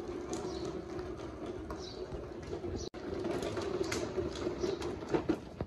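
Plastic wheels of a toddler's push tricycle rolling over cracked asphalt with a steady rumble and light rattling.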